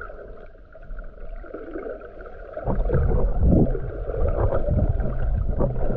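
Muffled sloshing and gurgling of sea water heard through a waterproof or submerged camera while swimming. It gets much louder about two and a half seconds in, with irregular surges of water.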